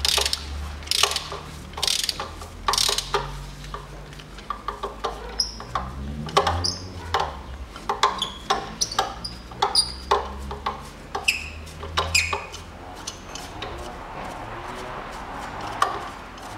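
Irregular clicks and short metallic clinks from a socket wrench on a long extension, as a seized spark plug is worked back and forth in the cylinder head of a Mitsubishi 4G15 engine. The clicks come thickly at first and thin out over the last few seconds.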